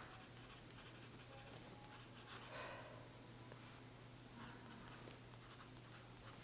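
Faint scratching of a glass dip pen's nib on paper as it writes a few short strokes, with a couple of slightly louder scratches in the middle.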